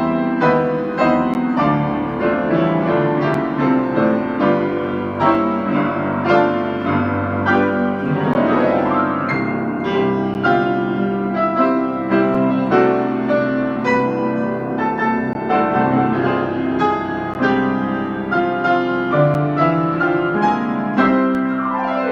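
Piano music playing continuously, with many notes struck in quick succession.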